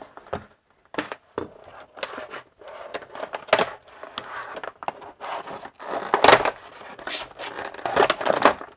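Clear plastic clamshell blister pack being pried and torn open: an irregular run of crackles, crinkles and sharp snaps, loudest about six seconds in and again near the end.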